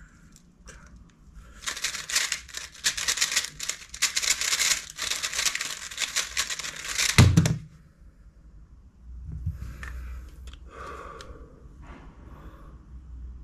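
Tornado V3 3x3 speedcube being turned very fast, a dense stream of plastic clicks for about five and a half seconds. It ends in a loud thump as both hands slap down on a stackmat timer to stop it. Quieter rustling of handling follows.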